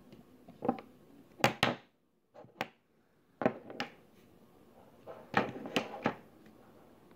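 Slime being worked by hand, giving about nine short, sharp pops and squelches in irregular clusters, some in quick pairs.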